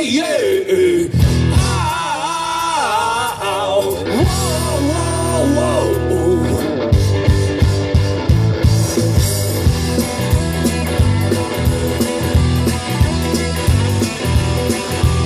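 Live rock band playing through a large outdoor PA, heard from the audience: electric guitars, bass and drums with a sung melody in the first few seconds, then an instrumental stretch driven by a steady drum beat.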